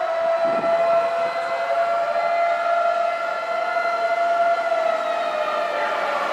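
Fire engine siren wailing on an emergency run, one long held tone that rises slowly and starts to fall near the end.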